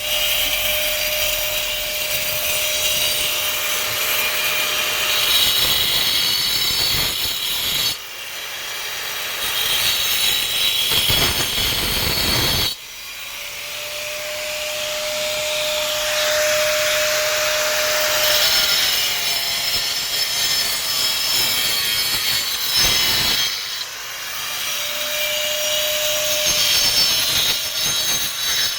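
A power tool grinding out old, cracked mortar joints: dense, steady grinding with a thin whine that comes and goes. The sound changes abruptly a few times.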